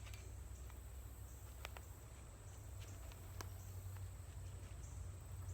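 A few light clicks, three of them about a second and a half apart, over a steady low hum and a faint high hiss.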